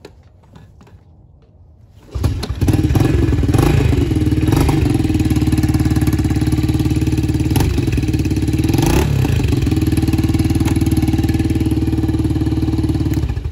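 A Yamaha TT-R90 dirt bike's small four-stroke single kick-starts about two seconds in and idles steadily, with a few short blips of the throttle, then cuts off near the end. It runs well after a new carburettor and head work.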